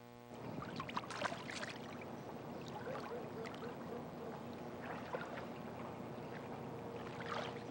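Swimming-pool water lapping and splashing, with irregular small splashes.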